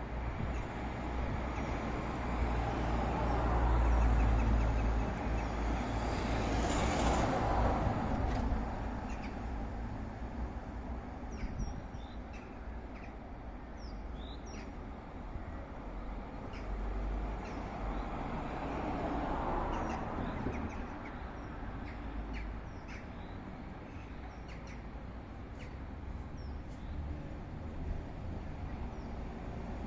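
Street traffic with vehicles passing, louder a few seconds in and again about twenty seconds in, while birds chirp in short, high notes through the second half.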